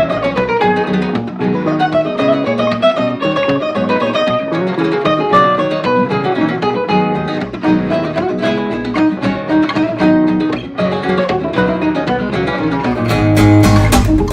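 Music: fast, rhythmic acoustic guitar duet in a flamenco-influenced style, with percussive strikes on the guitar body and a heavier low, struck passage near the end.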